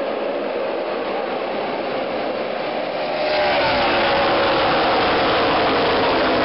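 NASCAR stock cars' V8 engines at race speed as a pack of cars passes. The sound swells sharply about three seconds in as the field goes by close, with the engine notes falling in pitch as they pass.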